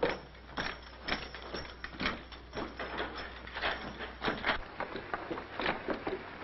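A run of irregular knocks and thuds, about two or three a second, on an old film soundtrack. A low hum drops out about four and a half seconds in.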